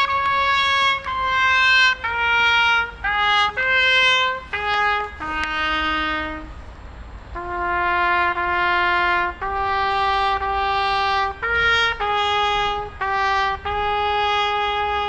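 Solo trumpet playing a slow melody of long held notes, with short breaks between them and a softer passage about halfway through.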